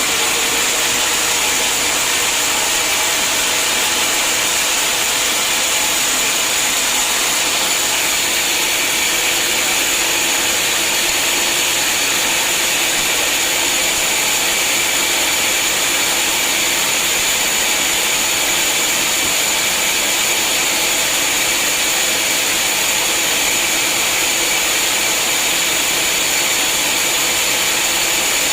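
Sawmill saw running steadily through a hard acacia log, a continuous high-pitched whine over machine noise.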